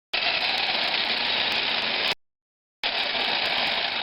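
Electric jigsaw running steadily as it cuts through a pumpkin's shell. It stops abruptly about two seconds in and starts again just before three seconds.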